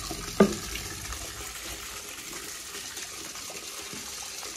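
Water running from an open outdoor tap and splashing into a plastic basin, a steady hiss, with one sharp knock about half a second in.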